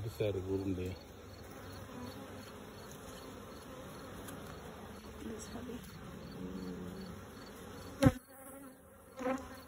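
Honey bees from an opened hive buzzing in a steady hum around a lifted frame. A single sharp knock sounds about eight seconds in.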